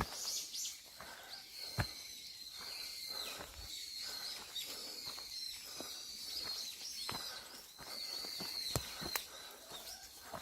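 Small birds chirping and twittering continuously in a forest, with a few irregular footsteps on a path.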